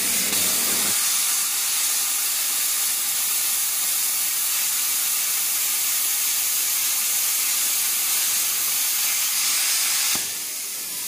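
Stahlwerk plasma cutter cutting sheet metal: a steady, loud hiss of the arc and its compressed air, stopping suddenly about ten seconds in.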